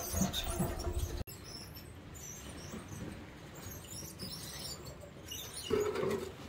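Metal wheelbarrow carrying a loudspeaker cabinet, rattling and clattering as it rolls over wooden deck boards. The sound cuts off abruptly about a second in. Near the end there is a short scraping knock as the cabinet shifts in the barrow.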